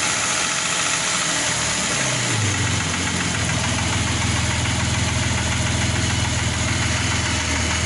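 Opel Omega B's X25XE 2.5-litre V6 engine idling with a knock, a knock that appeared after the engine was rebuilt and whose cause the owner does not know. Its low note shifts slightly about two and a half seconds in.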